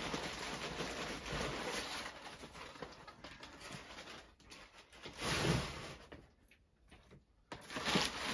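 Packing material rustling and crinkling as a box is unpacked, in irregular handling noises with a louder rustle about five seconds in and a brief lull near the end.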